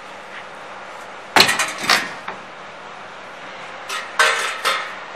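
Green steel machine frame being lifted out of a wooden shipping crate, knocking and clanking against the crate. Two sharp knocks come about a second and a half in, then a cluster of clanks around four seconds in.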